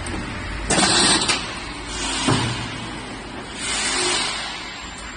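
Automatic roll-forming machine for metal roof tiles running, with loud bursts of hiss about a second in and again near four seconds, and a short knock in between.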